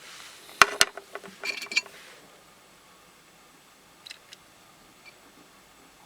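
Pieces of rough opal clicking and clinking against each other and a hard surface as they are handled. There are two sharp clicks about half a second in, a quick run of clinks around a second and a half, and a few faint ticks about four seconds in.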